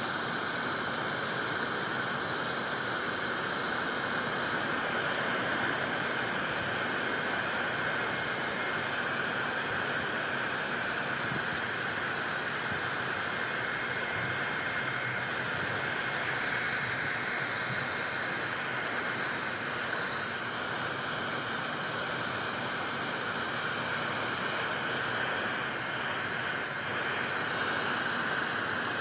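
Wagner heat gun running on high, its fan and element blowing a steady rushing hiss with a constant whine in it, as hot air is played across a hazy headlight lens to clear it.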